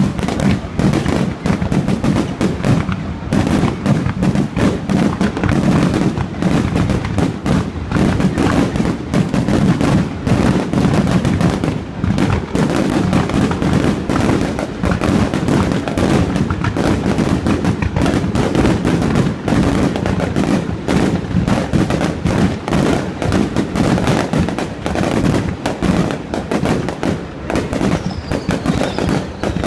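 Fireworks display: a dense, continuous barrage of bangs and crackling with no pause. Near the end, two high whistles fall in pitch.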